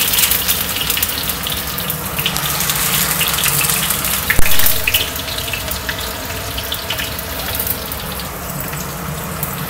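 Sliced shallots and garlic frying in hot cooking oil in a steel wok: a steady sizzle with fine crackles, and one knock about four and a half seconds in.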